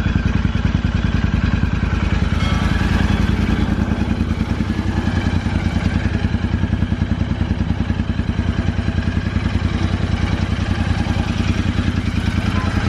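Royal Enfield Interceptor 650's 648 cc parallel-twin idling steadily through aftermarket Gursewak exhaust silencers fitted with dB killers, an even pulsing beat, mellow with a bit of bass.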